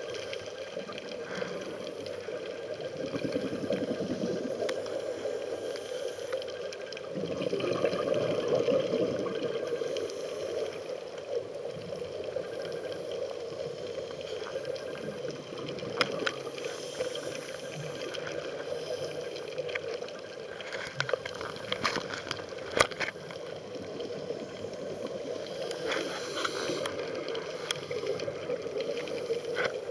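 Underwater sound through a camera housing: a scuba diver's exhaled bubbles gurgling in surges, over a steady underlying noise, with scattered sharp clicks later on.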